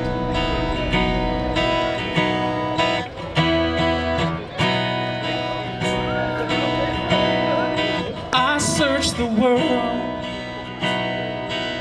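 Worship band music in an instrumental passage, led by strummed guitar chords in a steady rhythm, with a short bending melodic line about two-thirds through.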